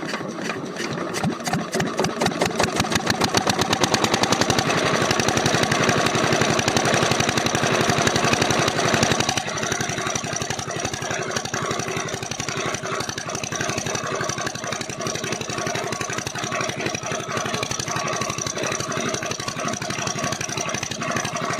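Single-cylinder 5 HP diesel engine running with an even, rapid firing knock. It is louder in the first half and settles to a quieter, steady run after about nine seconds.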